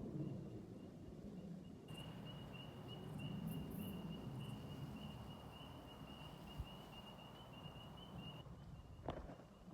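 Faint outdoor ambience: a steady, high-pitched pulsing trill from a creature runs throughout over a low rumble, with a couple of short clicks near the end.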